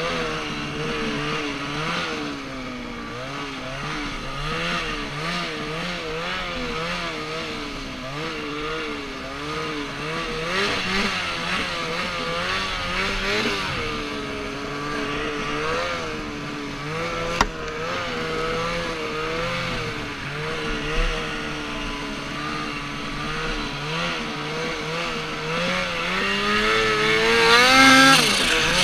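Aerocharger-turbocharged 2014 Ski-doo XM Freeride snowmobile engine running hard, its revs rising and falling continually as the throttle is worked through powder. It climbs to its highest, loudest revs near the end.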